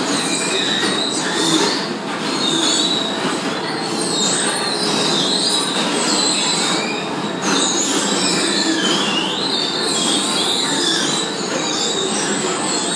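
Bumper-car ride running: a steady, loud din of the cars moving about, with knocks through it and wavering high squeals.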